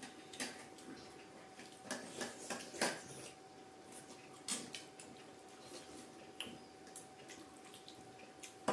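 Close-up eating sounds: irregular wet clicks and small taps, as of chewing and utensils against a dish, over a faint steady tone.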